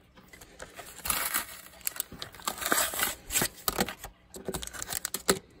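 Plastic and cardboard of a Pokémon trading card blister pack crinkling and tearing as it is pulled open by hand: a run of irregular crackles and rustles.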